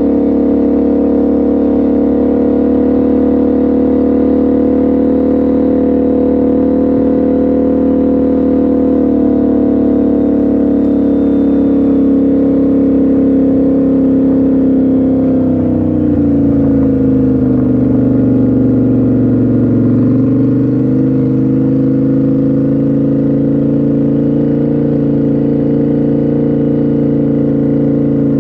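Beach bike's engine running steadily as it is ridden over sand, heard from on board. A little past halfway its pitch drops for a few seconds as it slows, then climbs back.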